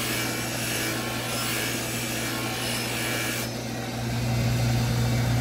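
Steel edge of a Husqvarna carpenter's axe being buffed on a drill-press-mounted buffing wheel: a steady rubbing noise that cuts off about three and a half seconds in as the axe is lifted off the wheel. Under it the drill press motor hums steadily, louder near the end.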